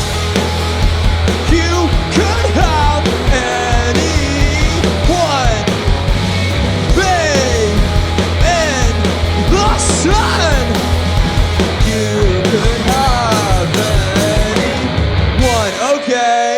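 Live punk-leaning rock band playing loud: distorted guitars, bass and drums under a lead part that slides up and down in pitch. Near the end the band stops together, leaving a single held note ringing.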